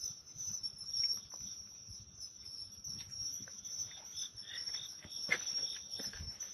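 Crickets chirring at night in a steady high-pitched drone, with scattered faint clicks and scuffs.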